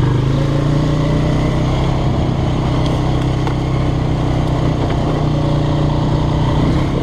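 Four-wheeler (ATV) engine running steadily at an even pitch while riding, with no revving up or down.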